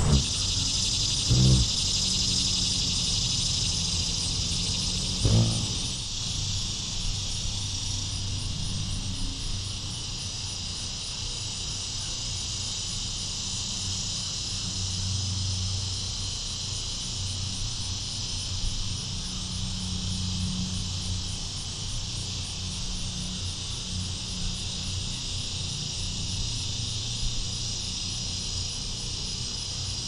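Steady high-pitched outdoor insect chorus, with a low steady hum underneath. Two soft thumps come in the first six seconds.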